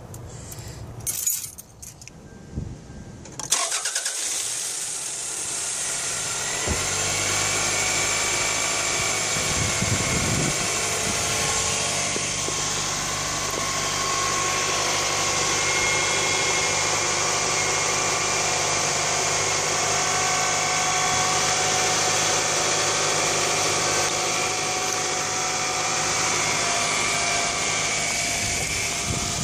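A 1998 Toyota Camry's 2.2-litre four-cylinder engine is started a few seconds in and then idles steadily, freshly refilled with coolant after a water pump housing gasket repair.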